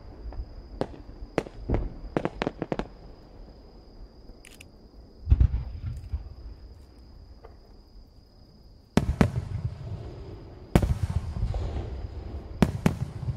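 Aerial firework shells bursting: a quick run of sharp cracks, then a deep boom, then two loud booms with a rolling rumble after them, and more cracks near the end.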